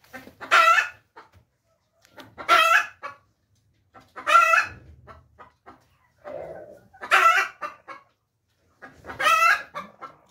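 Chickens calling: five short, loud calls about two seconds apart, with softer clucking and faint clicks in between.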